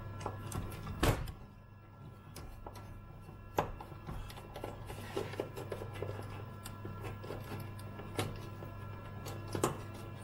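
Screwdriver turning out screws from a Commodore 128D's metal shield and plastic case: small clicks and scrapes, with a few sharper knocks as the tool and parts shift.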